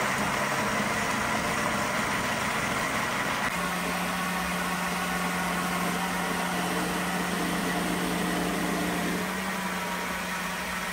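Electric blender running steadily, whirring as it purees pressed tofu with water and seasonings into a smooth batter; its motor pitch steps up slightly about three and a half seconds in.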